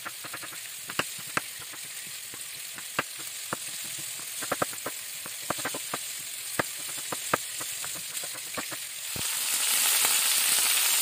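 Kitchen knife slicing mushrooms on a wooden cutting board: sharp, irregular taps of the blade on the board over a faint steady sizzle. About nine seconds in it gives way to a louder, denser sizzle of flour-dusted beef cubes frying in hot oil in a pan.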